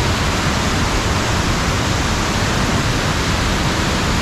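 Loud, steady rush of high water at the Erattayar tunnel intake, swollen by heavy rain.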